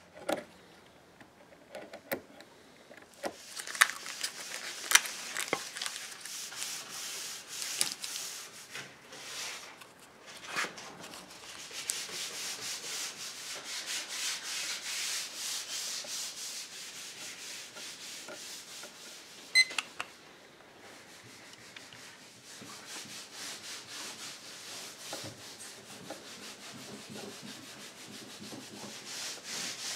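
Repeated rubbing and scraping strokes of hand work on a mahogany table leg, with a few sharp clicks. About two-thirds of the way through there is a short electronic timer beep.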